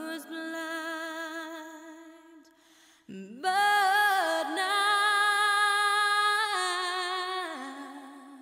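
Music: a single singing voice holding long notes with a slight vibrato. A first note fades away, then a higher note slides in about three seconds in, is held, and falls away near the end.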